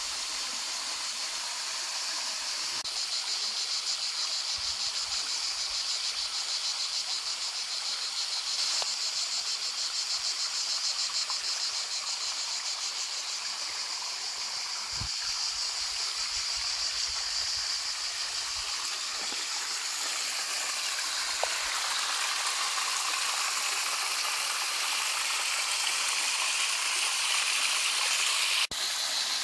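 Mountain stream spilling in small cascades over porphyry rock into pools, a steady rushing trickle. A high insect chirring runs over it.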